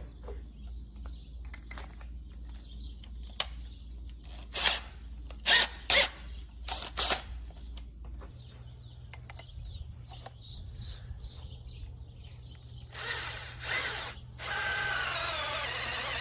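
Power drill driving a screw-in ground anchor into the soil: several short bursts of the drill, then a steady run near the end, its motor whine bending in pitch under load.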